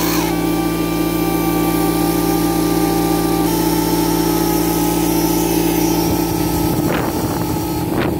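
Pneumatic air scribe buzzing steadily as it chips chalk matrix away from an ammonite fossil. Near the end, rumbling handling noise and a couple of sharp knocks.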